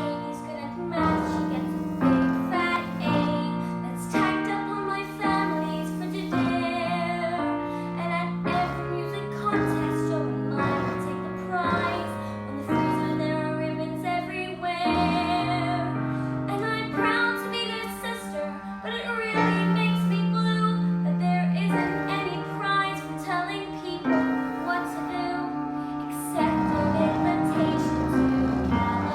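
A solo voice singing a song with piano accompaniment. The sung notes waver with vibrato over chords that change every second or two.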